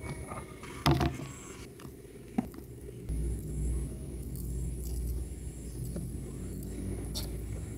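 A kitchen knife cutting young corn on a plastic cutting board, with a sharp knock about a second in and a few lighter clicks and scrapes as the cobs are trimmed. From about three seconds in, a steady low rumble runs under it.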